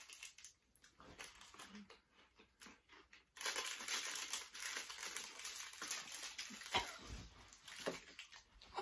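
Plastic snack wrapper crinkling as it is torn open and handled: a few faint rustles, then dense crackling from about three seconds in. There is a dull thump about two-thirds through.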